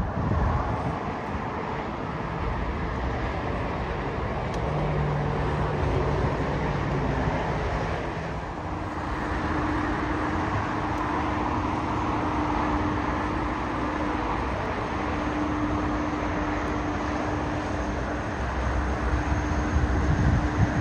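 Steady rumble of airport and road traffic noise: jet airliners' engines on the airfield mixed with passing cars, with a steady low hum joining about halfway through.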